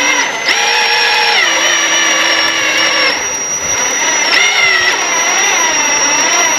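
Electric drill running on low speed, driving a wire stripper through stiff aluminum wire. Its whine falls and rises in pitch several times as the load on the wire changes.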